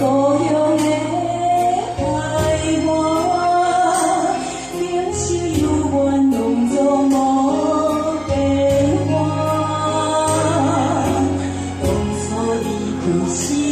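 Music: a song with a woman singing a melody over held bass notes and a light, steady beat.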